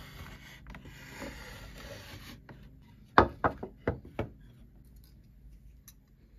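Blade of a wooden marking gauge scraping along a wooden board as the gauge is slid along the edge to scribe a line. About three seconds in come four sharp knocks in quick succession, which are the loudest sounds.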